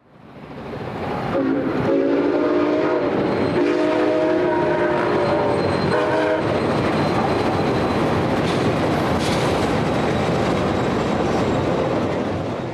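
A passenger train led by Amtrak ALC-42 diesel-electric locomotives passes with its horn sounding two long blasts and one short one, then a steady loud rumble of the train going by. The sound fades in at the start and cuts off abruptly near the end.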